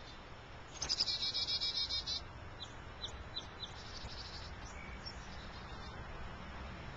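Finches calling: a rapid buzzy trill starts about a second in and lasts about a second and a half. Several short chirps and another brief trill follow.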